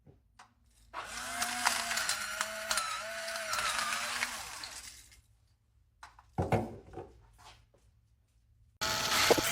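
A battery-powered electric salt and pepper grinder's small motor runs for about four seconds with a wavering whine, with the fine crackle of grains being ground. A few clicks follow, and a second short burst of sound comes near the end.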